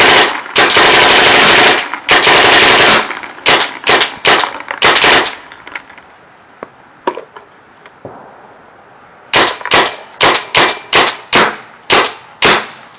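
Tippmann Alpha Black paintball marker with Cyclone feed firing, very loud: long rapid strings of shots for the first three seconds, then quick single shots, a pause of about four seconds, and another run of about ten shots near the end.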